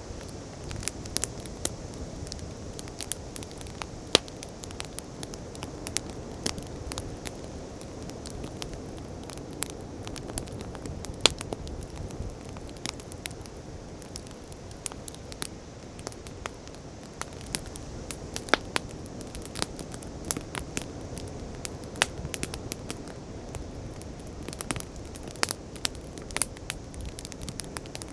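Wood campfire crackling, with frequent sharp irregular pops over a steady low rush of ocean waves.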